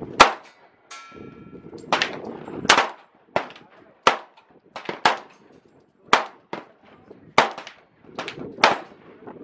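Handgun shots at an outdoor range: about a dozen sharp cracks at uneven intervals, some in quick pairs, each trailing off briefly.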